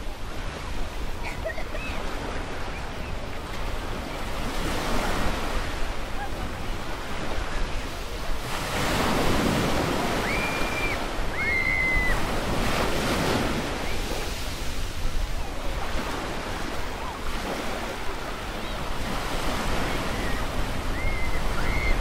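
Gentle waves washing onto a sand beach in slow swells, loudest about nine and thirteen seconds in, over a steady low rumble of wind on the microphone. A few short high whistles come through near the middle and again near the end.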